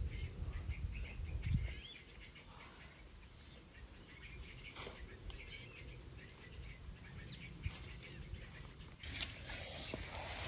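Small birds chirping over quiet outdoor ambience, with a low rumble in the first couple of seconds. Near the end, a louder rustling noise as leafy greens are handled in a metal bowl.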